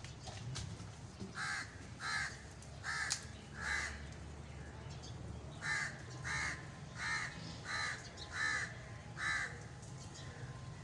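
A crow cawing repeatedly: a run of four caws, then after a short pause a run of six, about two-thirds of a second apart.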